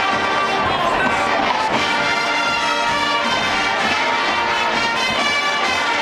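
A marching band playing at full volume: brass including sousaphones, over a steady drum beat.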